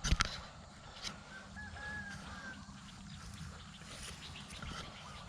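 A sharp knock at the very start, then a few faint, thin whistling animal calls over a low outdoor background.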